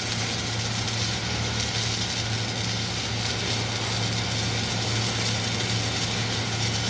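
Welding equipment running steadily: a constant low hum under an even, continuous hiss.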